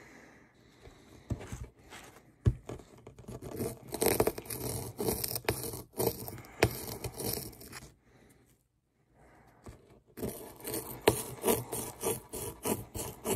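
Small plastic pick scraping and chipping rapidly at a ruby dig-kit block, in two spells of quick strokes with a pause of about two seconds between them.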